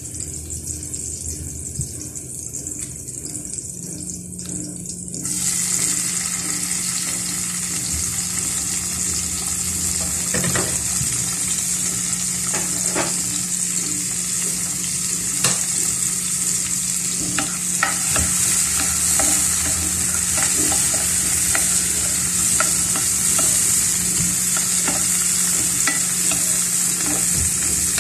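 Onions and garlic frying in a pan: a steady sizzling hiss that comes in about five seconds in and carries on, with scattered clicks and knocks against the pan over it.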